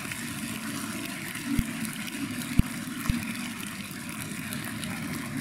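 Audience applauding and crowd noise in a large hall, with a few dull low thumps about one and a half, two and a half and three seconds in.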